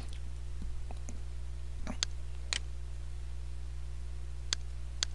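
Computer mouse button clicking, four sharp clicks spaced out over the second half, with a few fainter ticks before them, over a steady low hum.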